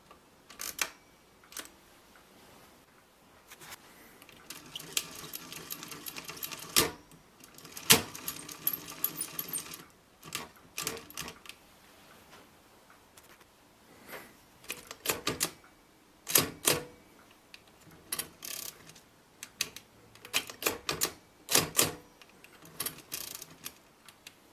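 Facit C1-13 mechanical pinwheel calculator worked by hand at its levers and crank: sharp mechanical clacks throughout, with a dense ratcheting clatter of the mechanism from about four to ten seconds in.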